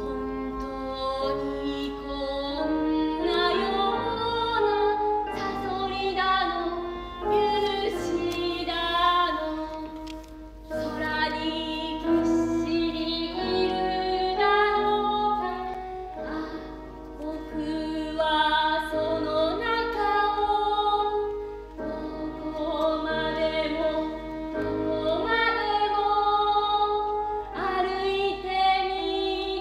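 Music: a woman's voice singing a melody over instrumental accompaniment, dipping briefly in loudness about ten and again about twenty-one seconds in.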